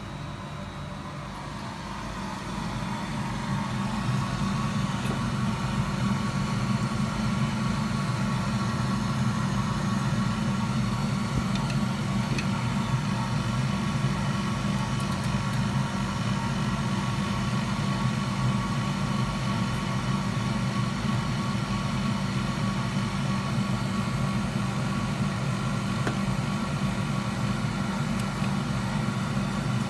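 Steady drone of a fan-driven electric machine: a low hum with several steady tones above it, growing louder over the first few seconds and then holding level.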